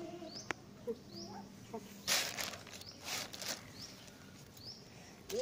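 Faint, short, high rising chirps repeated every second or so, like a small bird's, with two short bursts of hissing, rustling noise about two and three seconds in.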